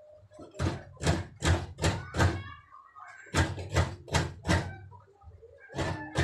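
Coconut being grated by hand over a basin: sharp scraping strokes in quick runs of four or five, about three a second, with short pauses between runs.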